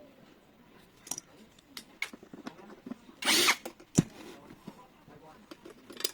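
Lock hardware being handled and fitted: scattered small clicks and taps of metal parts. About halfway through there is one short harsh burst lasting under half a second, followed by a single sharp knock.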